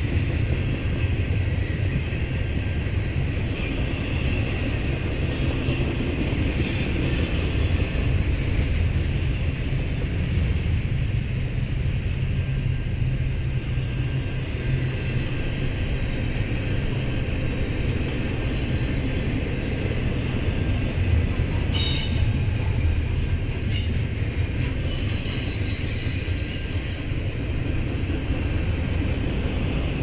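Double-stack intermodal freight cars rolling past close by, a steady low rumble of steel wheels on rail. Brief high-pitched wheel squeals come in the first few seconds and again near the end, with a few sharp clanks a little after the middle.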